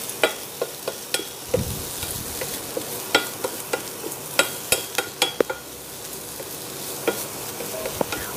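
Wooden spatula stirring cooked moong dal in a stainless steel pressure cooker pot, knocking and scraping against the metal with irregular sharp taps that ring briefly, over a steady light sizzle of frying.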